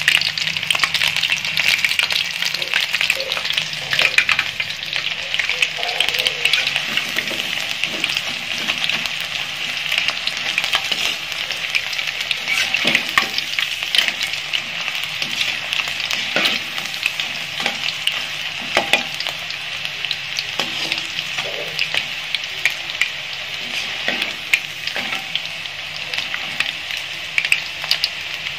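Hot oil sizzling and crackling steadily as pieces of conch meat deep-fry in a wok, with a slotted skimmer stirring through the oil now and then.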